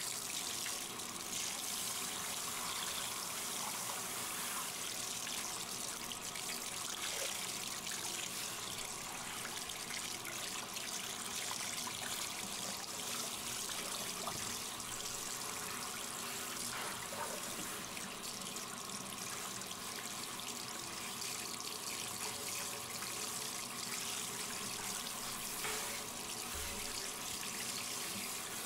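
Water running steadily from a handheld shower head, spraying and splashing over a wet dog's coat and the bathtub as the dog is rinsed. The hiss holds even throughout.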